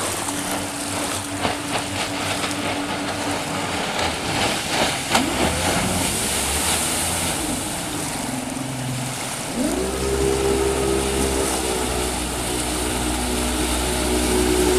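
KingFisher 2175 XS SJ aluminum boat's engine running at speed as the boat approaches and passes close by. About ten seconds in the engine note rises in pitch and grows much louder and deeper as the boat comes near, over a steady hiss.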